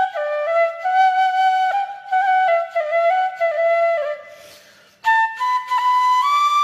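Background music: a solo flute playing a slow melody in stepping notes. The phrase fades out about four seconds in, and a new phrase begins a second later on higher notes.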